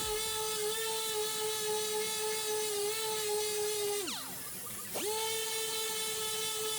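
High-speed rotary grinder running at a steady high whine while grinding down car body sheet metal. It spins down about four seconds in, runs back up to speed a second later, and spins down again at the end.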